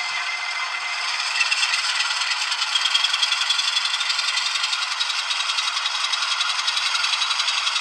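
Model locomotive sound decoder playing an ALCO 6-539T diesel engine sound through a tiny sugar cube speaker, thin and bassless, chugging in a rapid pulse that gets a little louder about a second and a half in as the N scale RS-1 rolls along the track.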